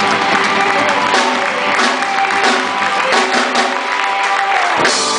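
Live band playing the closing bars of a song: drum kit with repeated cymbal hits over a held guitar chord, ending on a final strong hit near the end.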